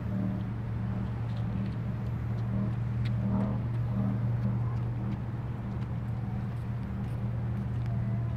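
A steady low engine hum at a constant pitch, with a few faint clicks above it.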